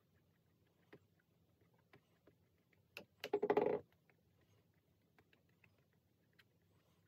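Paintbrush brushing and tapping faintly on canvas, with a sharp click about three seconds in, followed by a short, louder rattling burst.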